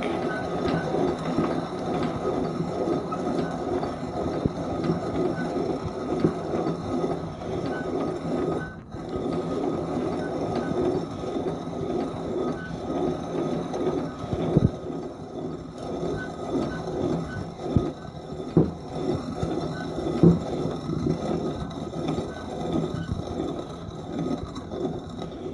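Old coffee grinder grinding coffee beans: a continuous gritty scraping and crunching with a faint tick repeating at a steady pace, and a few sharper knocks in the second half.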